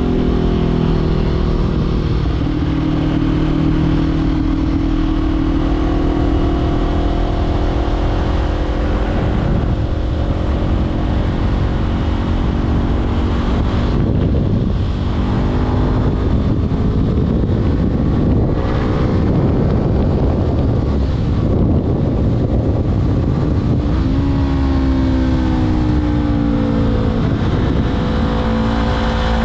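Honda CBR500R parallel-twin engine running under way through an LV10 slip-on exhaust, with rushing wind noise on the microphone. The engine holds steady revs at first; near the end the revs drop and then climb again.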